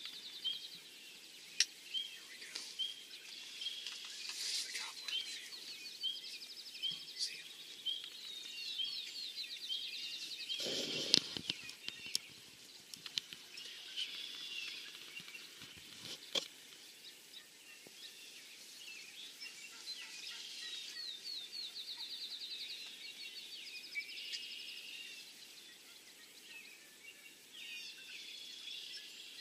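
Songbirds singing: repeated short chirps and fast high trills, with a few sharp clicks and a brief low rustle about eleven seconds in.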